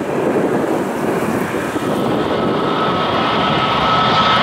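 Airbus A321neo's Pratt & Whitney PW1100G geared turbofan engines running: a broad rumble with wind on the microphone. About halfway through, a steady high whine comes in over it.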